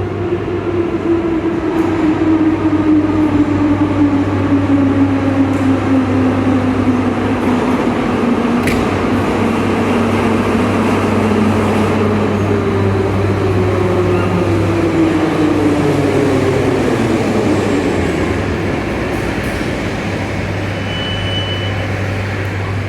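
Moscow metro train's gear and traction-motor whine falling in pitch as the train slows, the drop heard twice, over a steady low hum, with a sharp click about nine seconds in and a short high beep near the end.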